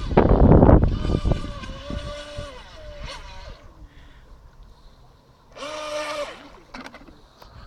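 Skytech H100 RC boat's small electric motor whining in two throttle bursts: the first runs a couple of seconds and drops in pitch as it eases off, the second is short, about two-thirds of the way through. Wind rushes on the microphone at the start.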